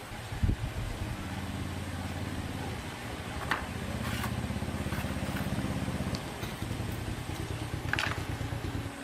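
A small petrol engine running steadily. It gets louder for a couple of seconds in the middle and stops near the end, with a few sharp metallic clicks over it.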